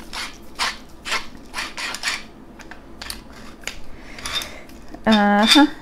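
Hand-turned pepper mill grinding peppercorns: a run of short grinding twists about two a second, growing fainter after a couple of seconds, from a stubborn grinder. A woman's voice sounds briefly near the end.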